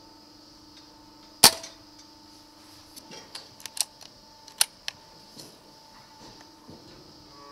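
A single shot from a moderated Brocock Compatto PCP air rifle about a second and a half in, a short sharp crack, followed by a run of lighter clicks and knocks, the strongest about three seconds after the shot. A low steady hum sits underneath.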